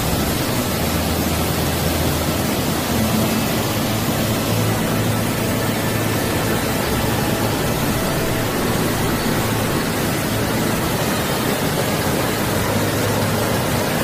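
Rain-swollen stream in flood, its whitewater rushing past in a steady, loud, even rush.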